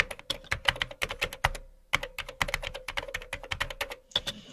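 Keyboard typing sound effect: rapid key clicks, about ten a second, with a short break about a second and a half in, stopping near the end.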